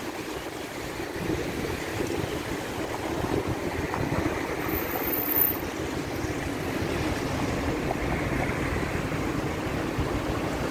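Steady, gusty rush of wind on the microphone of a camera carried on a moving bicycle, mixed with the wash of surf and street traffic.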